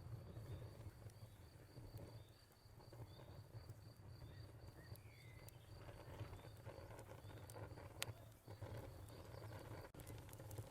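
Faint fire ambience: a low steady rumble with sharp crackling pops, the loudest about two-thirds of the way through and near the end. A cricket chirps in a fast, even pulse throughout, and a bird gives one short call about halfway.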